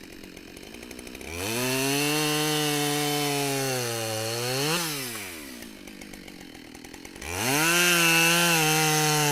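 Husqvarna 572XP two-stroke chainsaw idling, then throttled up into a cut through black locust, its pitch sagging slightly under load and flicking up briefly at the end before dropping back to idle about halfway through. It is throttled up into a second cut near the end.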